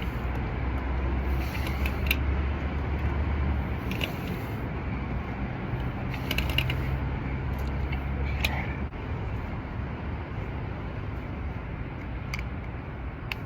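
Steady low mechanical hum and rumble with scattered sharp clicks and rattles.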